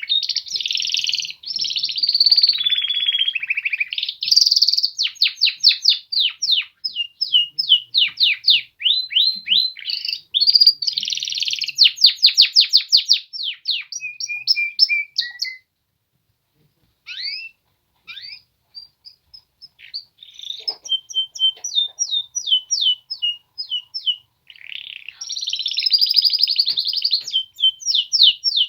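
Male canaries singing: fast trills and rapid runs of repeated high notes, with a silent break about halfway through.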